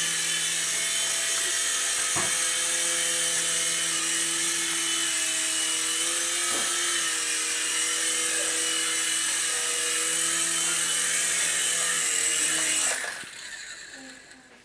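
Three-channel micro RC helicopter's electric motors and rotor blades whining steadily in flight, then spooling down about thirteen seconds in as it lands.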